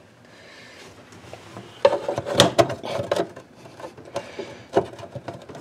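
A plastic network wall plate being handled and pressed into place against a wooden desk panel: a quick run of clicks and knocks starting about two seconds in.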